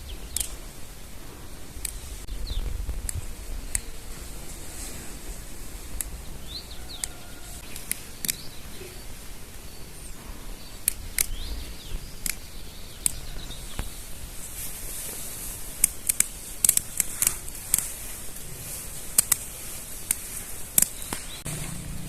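Outdoor ambience with a few short bird chirps and many scattered sharp clicks and snaps, the clicks coming more often in the second half.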